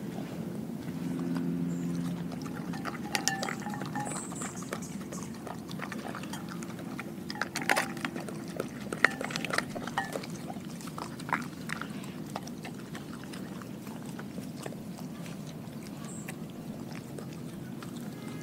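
Dog licking and chewing raw food out of a glass bowl: wet lapping and smacking with scattered sharp clicks, the loudest about eight and nine seconds in.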